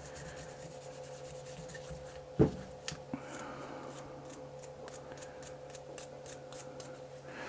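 Small brass wire brush scrubbing the CLP-soaked steel bolt of a Kriss Vector .22LR, quick scraping strokes about three a second, working carbon off the bolt. A single sharp knock about two and a half seconds in, as the bolt or brush knocks against something.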